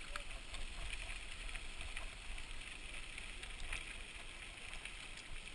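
Wind rushing over the helmet camera and tyres rumbling on a dirt trail as a mountain bike rolls along, with a few small clicks.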